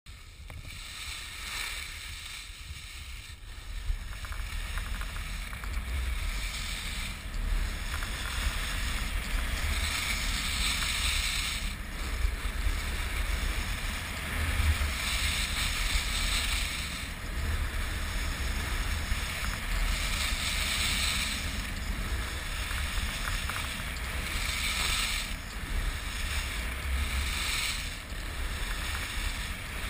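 Wind buffeting the camera microphone while skiing fast downhill, with the hiss of skis carving across groomed snow that swells with each turn, about every five seconds.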